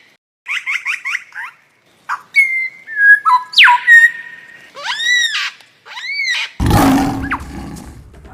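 Jungle bird and animal calls: repeated arching squawks, a quick run of chirps, whistles and a steep falling whistle. Near the end comes a harsh, noisy call that reaches low, and the sound cuts off suddenly.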